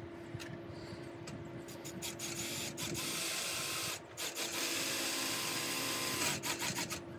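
Power drill driving a screw into the awning: a short run about three seconds in, a brief stop, then a longer run of about two seconds.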